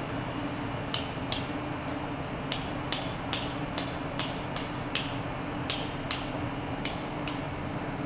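Hammer striking a steel chisel on stone, about a dozen sharp metallic taps at an uneven pace, often in pairs, each with a short ring. A steady low hum runs underneath.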